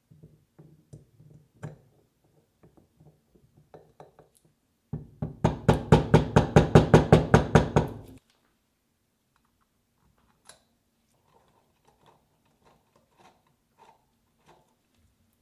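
Metal motor parts being handled and fitted together with small clicks and knocks, then a loud, fast run of knocks, about six a second, for about three seconds that stops abruptly, followed by a few faint clicks.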